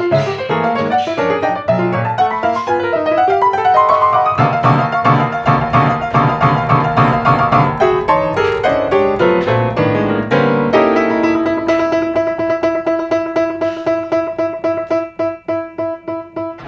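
Grand piano played fast: dense runs and chords. About eleven seconds in, it settles into a rapid repeated figure over held notes.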